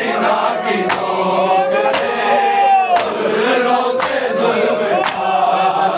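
Men chanting a noha, a Shia lament, in chorus, with a sharp beat about once a second as they strike their chests in matam.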